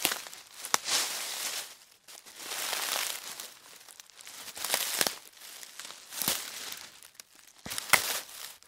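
Footsteps crunching through dry fallen leaves: slow, unevenly spaced steps, each a crackling crunch, with short pauses between them.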